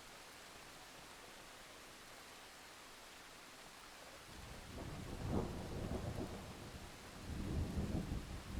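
Steady rain hiss, then about four seconds in a roll of thunder builds into a deep rumble that peaks, eases and swells again near the end.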